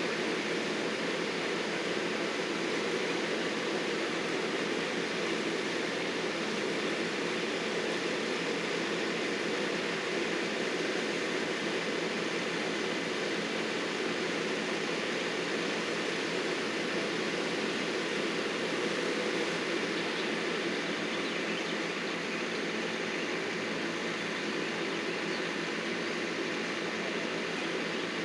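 Engine of heavy landscaping equipment running steadily at a constant speed, an even hum with no revving or pauses.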